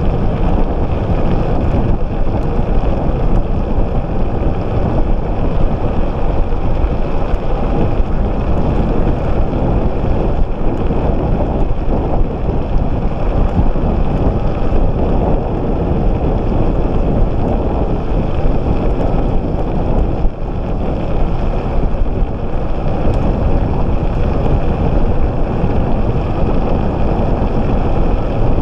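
Loud, steady wind buffeting the camera microphone, mixed with the tyre and road rumble of an electric scooter riding along asphalt at speed.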